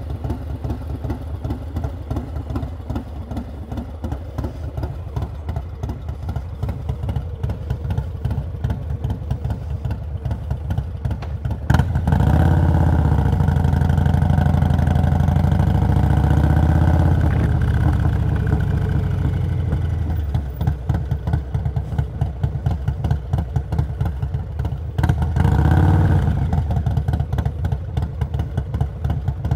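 Harley-Davidson Low Rider S's Stage 2 Milwaukee-Eight 117 V-twin running at low revs. About twelve seconds in, the revs climb suddenly and the engine runs louder for several seconds before easing back. A second, shorter rise in revs comes near the end.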